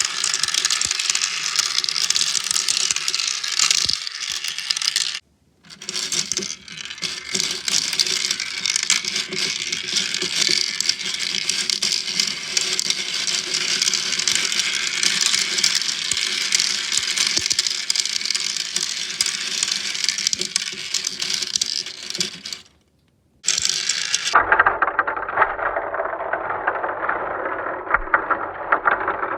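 Many 6 mm balls rattling and clicking continuously as they roll and drop through a tiny 3D-printed marble run, with a steady low hum underneath. The sound cuts out briefly twice and turns duller for the last few seconds.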